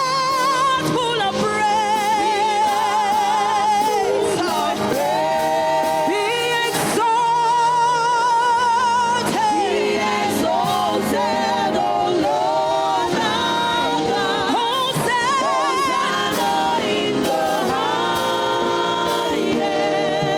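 Gospel music with singing: long held notes with a wavering vibrato over steady accompaniment.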